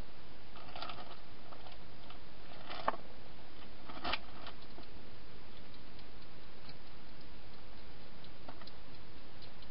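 A wild hedgehog feeding inside a clear plastic feeding box: scattered small clicks and taps, with two louder knocks around three and four seconds in, over a steady hiss.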